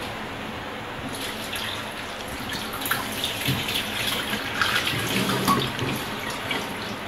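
Kitchen tap running into a stainless steel bowl in the sink as raw lobster pieces are rinsed by hand, the water splashing steadily, with a few sharper splashes and clinks of the metal bowl in the middle seconds as it is tipped to pour off.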